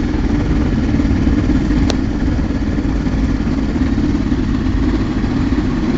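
Light aircraft's piston engine and propeller running steadily at low taxi power, heard from inside the cockpit as a loud, even drone.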